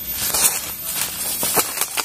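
Rustling and crackling from someone moving about among the bamboo, with a few soft clicks in the second half.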